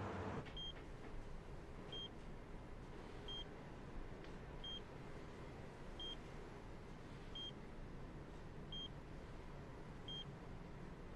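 Bedside patient monitor beeping in a slow, steady rhythm, one short high beep about every 1.4 seconds, each marking a heartbeat, over faint room hiss.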